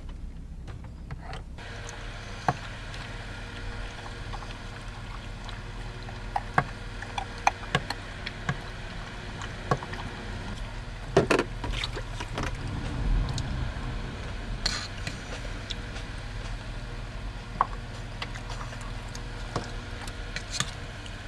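Steady low mechanical hum with scattered clicks and knocks. A cluster of louder knocks comes about eleven seconds in.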